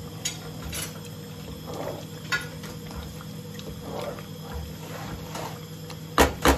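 Metal slotted spatula stirring and scraping chicken tikka around a non-stick saucepan while the oil on top bubbles gently over a low gas flame, with a steady low hum underneath. Two sharp knocks near the end.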